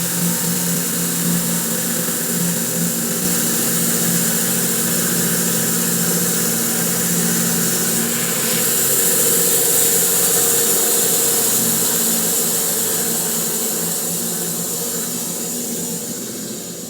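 Electric bandsaw mill with a carbide-tipped blade cutting through a spalted maple log: a steady motor hum under the hiss of the blade in the wood. The sound starts to fade near the end.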